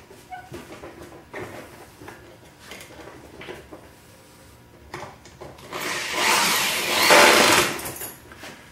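A few light wooden knocks and handling, then about six seconds in a cordless drill runs for about two seconds, driving a screw into the pine frame.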